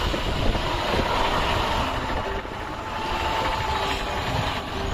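Vehicle on the move: steady engine and road noise.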